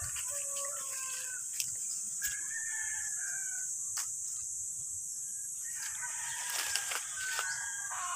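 A rooster crowing, once about two seconds in and again near the end, over a steady high hiss. A few sharp clicks come from branches being handled.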